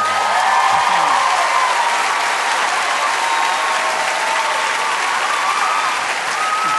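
Live concert audience applauding steadily after a song ends.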